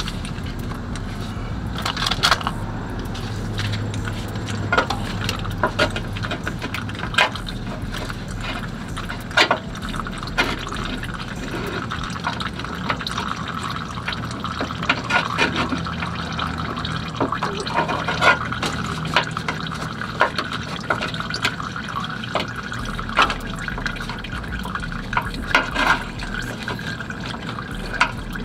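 Used engine oil pouring from the drain-plug hole into a drain pan during an oil change: a steady splashing stream, with scattered sharp clicks and knocks.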